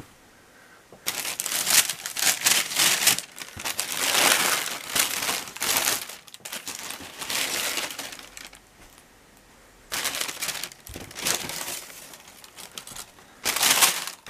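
Tissue paper in a shoebox rustling and crinkling as hands unwrap a pair of trainers, in several bursts with short pauses between.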